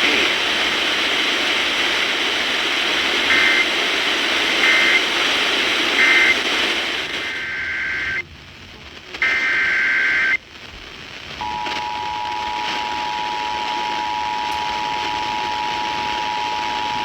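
Weather-radio alert broadcast with a steady static hiss. Three short bursts of SAME digital data tones come a little over a second apart, then two longer data bursts with brief dropouts. About eleven seconds in, the steady two-tone EAS attention signal begins and holds to the end, announcing the next warning.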